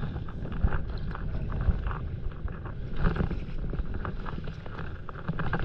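Stand-up paddle strokes splashing and water lapping around the board, in scattered short splashes, over a steady low rumble of wind on the microphone.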